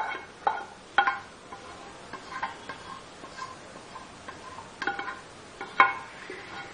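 Background music of sparse plucked-string notes, a few close together near the start and two stronger notes about five and six seconds in.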